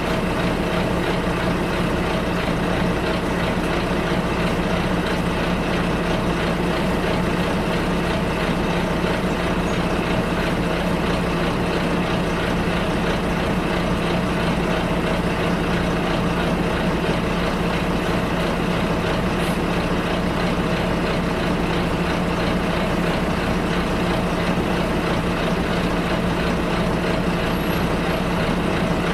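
Steady drone inside a moving bus: engine hum and road noise that hold even throughout, with no sudden events.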